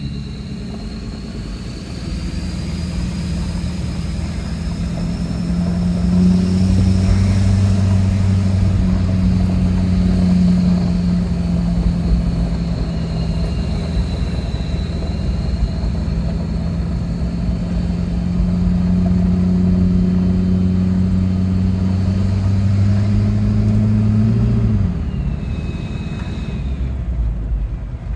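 2013 Ford 6.7 Powerstroke V8 turbo-diesel with a Titan 66 mm nine-blade turbocharger, driving under load: a steady engine drone with a high turbo whistle over it. Near the end the engine lets off and the whistle falls away as the turbo spools down.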